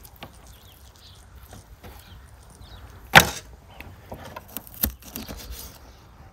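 Knocks and handling noises on a wooden cutting board as a raw rack of lamb ribs is moved and cut with a knife: one sharp, loud knock about three seconds in, a smaller one near five seconds, and light clicks between.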